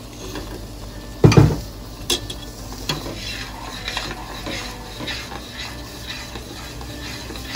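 Utensil stirring a poblano cream sauce in a pot as the blended chile mixture is worked into the flour-and-oil roux, with repeated light clicks and scrapes against the pot. One heavy knock about a second and a half in is the loudest sound.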